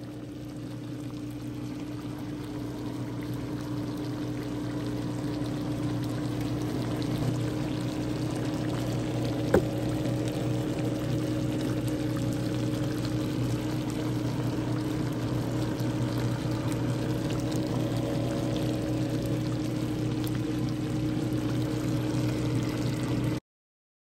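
Chicken adobo sauce simmering and bubbling in a wok, over a steady low hum. It grows louder over the first few seconds, has a single click about ten seconds in, and cuts off abruptly just before the end.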